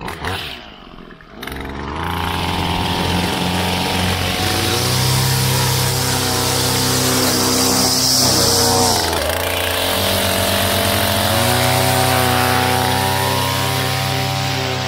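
Small two-stroke engine of an Edgit Pro edger starting up about two seconds in and running, revved up a couple of seconds later, dropping back to a lower speed about halfway through and revved up again while edging a concrete curb.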